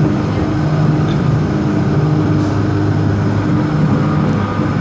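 Elevated electric railway car running along its track, heard from inside the car: a steady low drone of motor and wheels, with humming tones that fade in and out.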